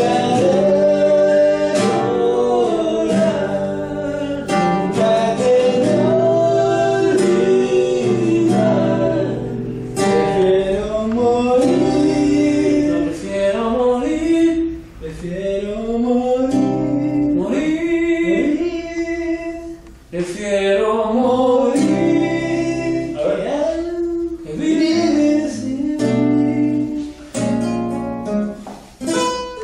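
Male voice singing a song to an acoustic guitar played by hand.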